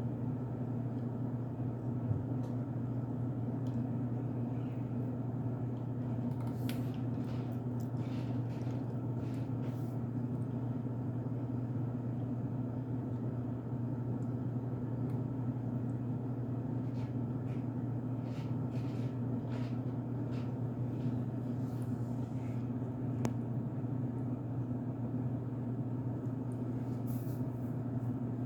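Steady low hum with faint crackling clicks in scattered bunches, the crunch of cornstarch being chewed.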